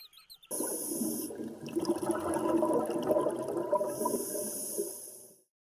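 Rushing, bubbling water, starting suddenly about half a second in and fading out near the end.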